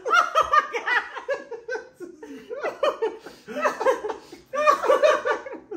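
A woman and a man laughing hard together in repeated bursts of laughter, easing briefly about two seconds in and again near four and a half seconds.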